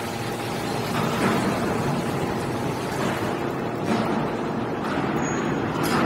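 Hydraulic scrap metal baler running, its hydraulic pump giving a steady drone while the ram pushes a compressed bale of metal shavings out of the chamber, with a few faint knocks.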